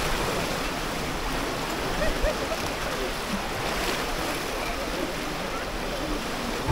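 Fast-flowing mountain river rushing, a steady hiss of water.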